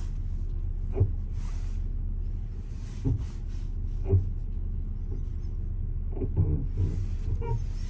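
2021 Porsche Cayenne with a steady low drone and short knocks about a second in, at about three and four seconds, and several more in quick succession near the end. It is a noise the owner doubts is normal, though it has been called "normal".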